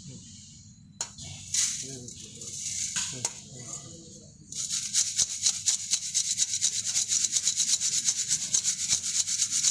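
Dry soil being worked through a 425-micron metal sieve over a steel tray. First come a few scattered hisses and scrapes as soil goes in. From about halfway there is a fast, steady rasping of soil grains against the mesh as the sieve is shaken and rubbed by hand, several strokes a second.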